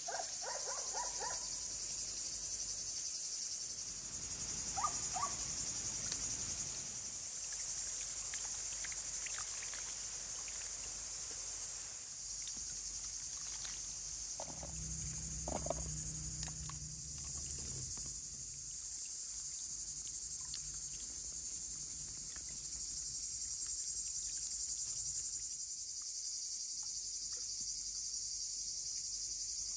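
Steady, high-pitched chorus of insects, with a few short chirps in the first six seconds and a brief low rumble about halfway through.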